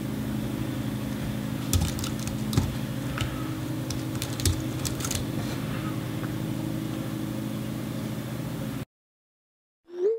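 Scattered clicks of a computer keyboard and mouse over a steady low hum. The sound cuts off about nine seconds in, and near the end comes a short rising swoosh, a text message's send sound.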